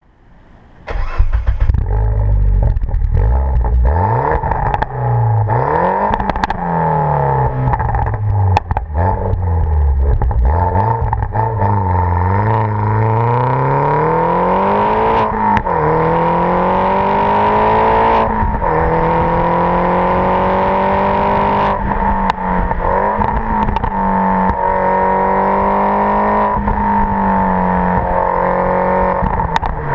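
Mini Cooper JCW (R56) 1.6-litre turbocharged four-cylinder running through an exhaust with no catalytic converter or centre silencer, only the rear JCW silencer. It starts about a second in and is revved up and down several times, then held at a fairly steady speed, with occasional sharp cracks.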